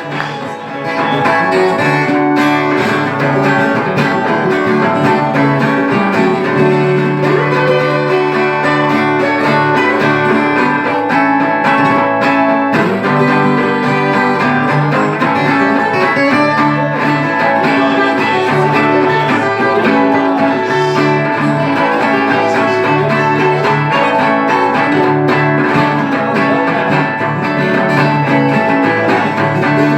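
Acoustic guitar (violão) and Brazilian ten-string viola caipira playing together; the music gets louder about a second in.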